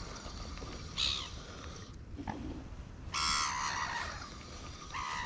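Gulls calling: a short harsh call about a second in, a longer one about three seconds in, and another short call near the end.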